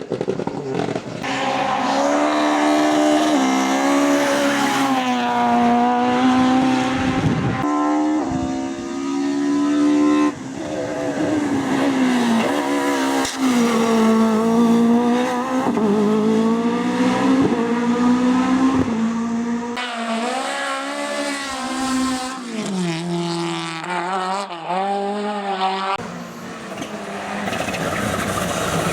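Race car engines at full throttle, revving up and dropping back again and again through gear changes, in several passes separated by abrupt cuts.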